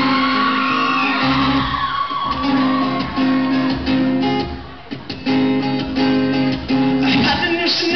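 Two acoustic guitars played live through a PA, picking out a song's intro in a steady, repeating pattern, with a brief break about five seconds in.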